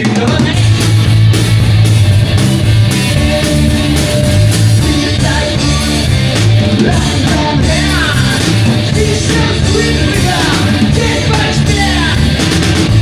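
Rock band playing loud and without a break: drums, bass and electric guitar.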